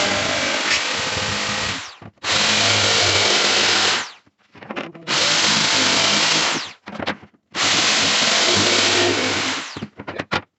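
Power drill run in four bursts of about two seconds each, each one winding down as the trigger is released, with short gaps between them.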